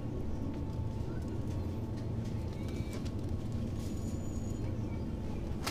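Supermarket background: a steady low hum, with faint distant voices and a few light clicks.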